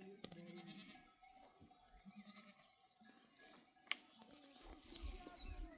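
Faint bleating from the camp's flock, short calls in the first second and again about two seconds in. A sharp click sounds about four seconds in, and a low rumble comes near the end.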